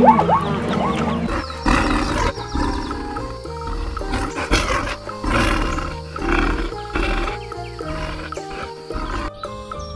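Sheep bleating, a series of rough calls about a second apart, over steady background music.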